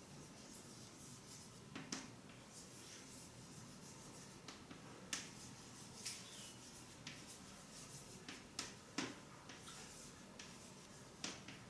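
Quiet writing: short pen strokes scratching and ticking every second or so over faint hiss.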